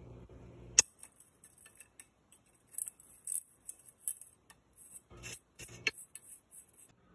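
Small metal bicycle parts clinking and clicking in short irregular clusters as a fitting is worked by hand at the rear axle. It opens with a brief low rumble and a sharp click about a second in.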